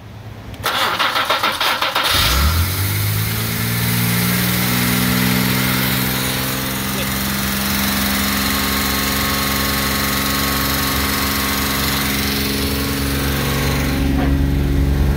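1969 Jaguar E-type's straight-six engine, fed by rebuilt Stromberg carburetors, cranks on the starter for about a second and catches about two seconds in, its pitch rising as it fires up. It then settles into steady running, a little louder near the end. This is its first start after sitting for 38 years.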